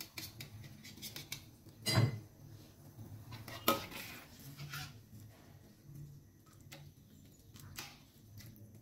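Metal spoon and ladle clinking and scraping against a wok as braising sauce is spooned over meatballs, with a loud clatter about two seconds in and another sharp clink just before four seconds, then lighter taps.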